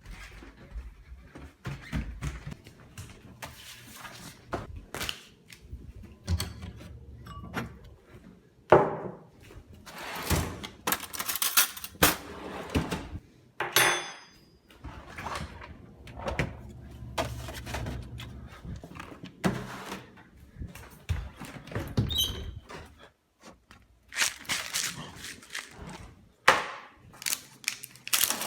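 Irregular knocks and thunks with stretches of rustling noise, like things being handled and set down at close range.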